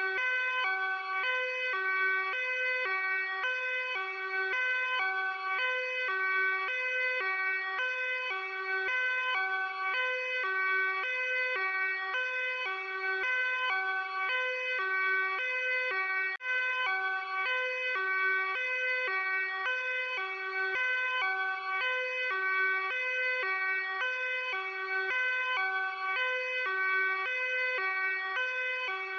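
Luxembourg police car's two-tone hi-lo siren, switching steadily back and forth between a low note and a high note.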